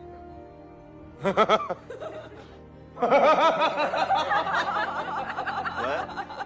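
Laughter over background music: a short laugh about a second in, then longer, louder laughter from about three seconds to six.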